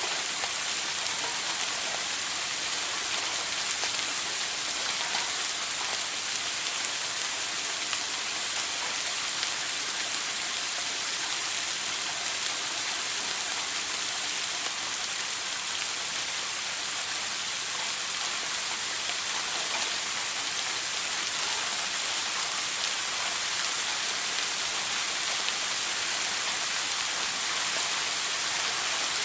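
Shower spray falling steadily: a dense, even hiss of running water with faint tiny droplet ticks.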